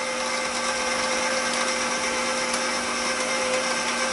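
KitchenAid Professional bowl-lift stand mixer running steadily on speed 2, its motor humming as the dough hook works flour, water and yeast into a stiff dough.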